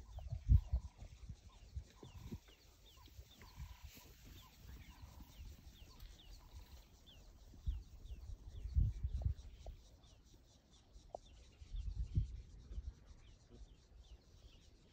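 Birds calling from the bush in a run of short, repeated falling chirps, with a few flat whistled notes in the first few seconds. Low rumbles of wind on the microphone swell up near the start and again about 9 and 12 seconds in.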